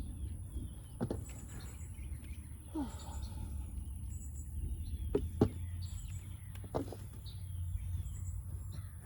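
Hands in gloves digging through loose soil and potatoes in a raised garden bed, with a few sharp knocks about a second in and again around five and seven seconds in. Birds chirp in the background.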